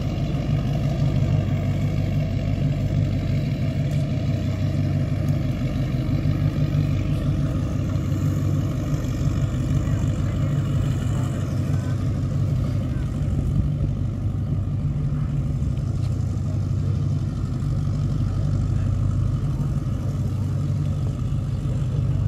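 Offshore racing powerboat's inboard engines running at low speed, a steady deep rumble that holds the same pitch throughout without revving.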